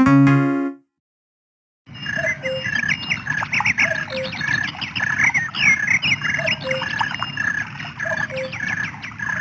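A melodic ringtone from the 2002 LG LX5350 phone plays its last notes and stops within the first second. After a short silence, a nature-sound ringtone of chirping, twittering birds starts, with a short repeated tone about twice a second under the chirps.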